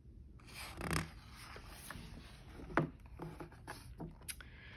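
A page of a large picture book being turned: paper rustling and sliding, loudest about a second in, then soft scattered rustles and light taps as the page settles.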